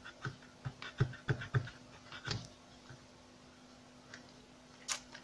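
Craft knife blade scraping and cutting through self-adhesive glitter paper in a series of short scratchy strokes for the first couple of seconds, then quieter, with a sharp click near the end. The blade drags: it cuts poorly through the sticky paper, or the blade is growing dull.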